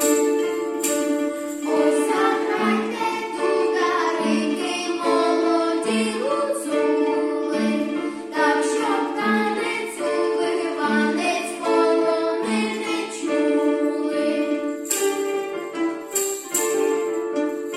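Folk ensemble performing a Ukrainian folk song: group singing over an instrumental accompaniment of plucked strings and long held notes. The voices come in about two seconds in and drop out near the end, leaving the instruments.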